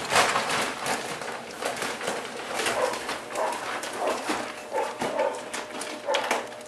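Newborn French bulldog puppies making short, irregular squeaks and whimpers, with soft rustling and shuffling as they nurse at their mother and settle on the blanket.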